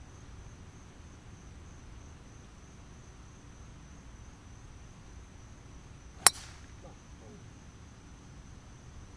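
A golf club striking a teed-up golf ball on a tee shot: one sharp, loud crack about six seconds in.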